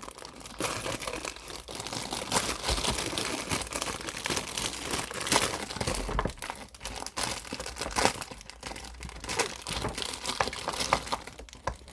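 Plastic packaging of a rainbow pop-it fidget toy being torn open and crinkled by hand: a continuous crackling and rustling with many small sharp crackles.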